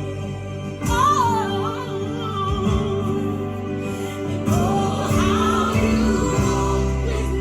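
Gospel song: a solo voice sings two ornamented runs, about a second in and again near the middle, over held chords and a bass line.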